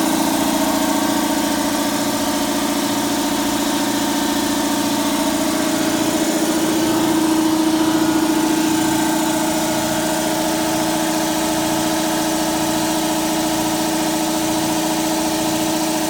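Belt-driven air compressor running steadily, its pump driven by a 1.5 hp electric motor through pulleys sized to turn the pump at about 900 RPM, with a steady hum.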